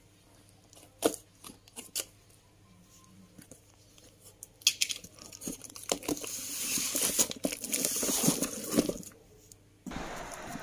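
A few light taps in the first two seconds, then about five seconds of newspaper rustling and crinkling as a newspaper-wrapped bundle is pulled out of a cardboard box.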